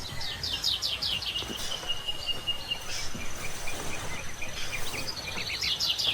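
Songbird singing outdoors: a fast run of short, falling notes near the start, a held whistle after it, and another fast run near the end, over a low steady background rumble.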